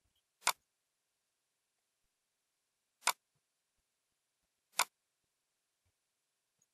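Computer mouse button clicking three times: single sharp clicks, the second about two and a half seconds after the first and the third under two seconds later.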